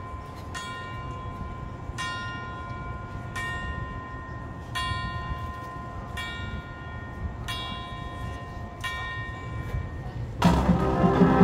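A bell tolling slowly, struck about once every second and a half, with each stroke ringing on, like a clock striking the hour. Near the end the full marching band comes in loudly.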